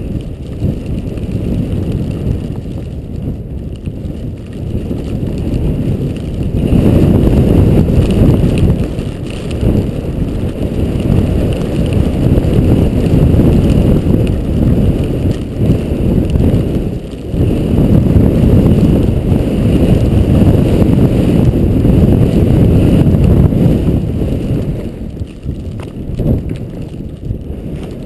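Wind buffeting the microphone of a skier's point-of-view camera during a descent through soft new snow, a low rushing rumble that swells about six seconds in, dips briefly midway and eases near the end.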